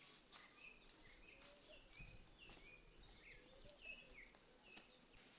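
Faint small-bird chirps, short and repeated every half second or so, over quiet background.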